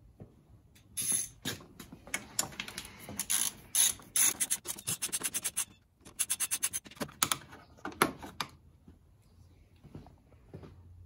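Ratchet wrench clicking as it backs out 10 mm screws: two runs of rapid, even clicks in the middle, with scattered single clicks and knocks around them.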